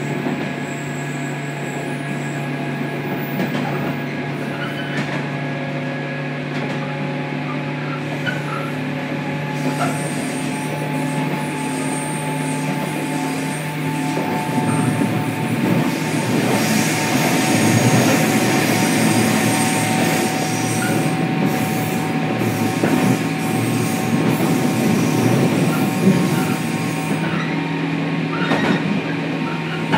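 Running sound inside a 103 series electric train's motor car (KuMoHa 103-1512) moving along the line: a steady low hum from the motors and gears over wheel and track noise. About halfway through the rumble grows louder and rougher, and a few higher steady tones join it.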